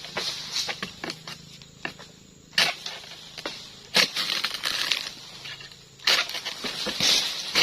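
Oil palm fronds being cut by hand with a dodos (pole chisel): sharp cracking strikes, loudest about two and a half, four and six seconds in, each with a short rustling tail, among lighter clicks.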